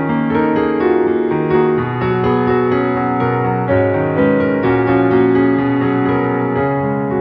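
Background piano music: a keyboard playing a run of held notes.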